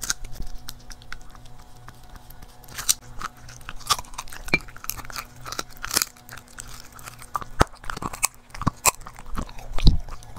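A corgi chewing and crunching on a chunk of raw meat, with irregular bites and crunches, the loudest one near the end.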